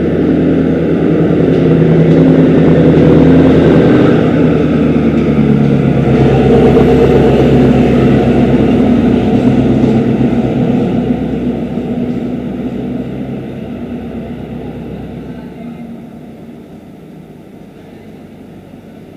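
Diesel multiple-unit local train's diesel engine running loud with a steady low drone, then fading away over the last several seconds as the train and the camera draw apart.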